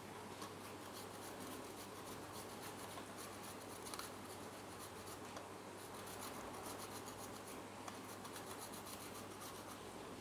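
A raw potato being grated by hand on a flat stainless steel grater: a continuous run of faint, repeated scraping strokes.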